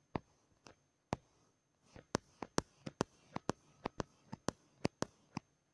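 Typing on a smartphone's touchscreen keyboard: a run of short, sharp clicks, a few spaced out at first, then a quicker patter of about four a second from around two seconds in.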